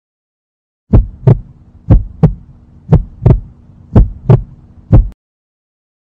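Heartbeat sound effect: deep lub-dub double thumps about once a second, four pairs and then a last single beat, over a low steady hum. It starts about a second in and stops about five seconds in.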